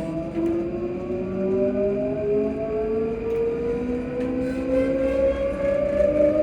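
Traction motors of a ScotRail Class 334 electric multiple unit humming under power, with several tones climbing slowly and steadily in pitch as the train picks up speed.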